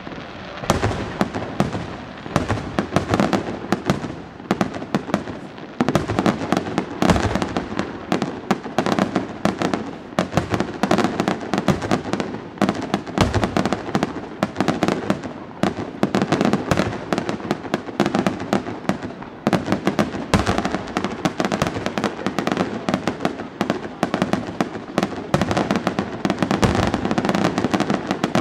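Aerial firework shells bursting in a continuous display: a dense crackling with louder booms every few seconds.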